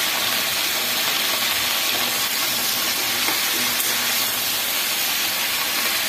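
Potato, aubergine and spinach-stem chorchori sizzling in a steel pan on a gas burner: a steady frying hiss. A spatula stirs through the vegetables in the second half.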